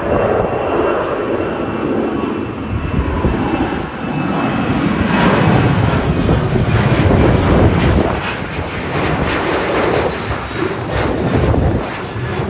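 Boeing 737-800 jet airliner's twin CFM56-7B turbofans at climb-out power, passing overhead. The steady jet noise grows to its loudest about six to eight seconds in as the plane goes over, then eases slightly as it moves away.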